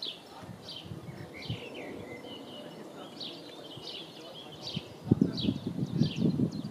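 Small birds singing, short high chirping phrases repeated over and over. About five seconds in, an irregular low rumbling, thumping noise starts and becomes the loudest sound.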